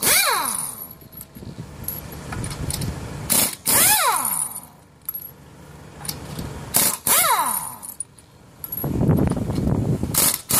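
Pneumatic impact wrench on a wheel's lug nut, fired in short bursts about every three and a half seconds; each burst ends with the air motor's whine falling in pitch as it spins down. A steady low hum runs underneath.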